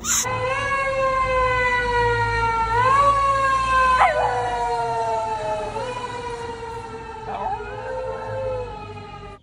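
A Shiba Inu howling along with a siren. The siren's long wail falls slowly in pitch and rises again about every three seconds.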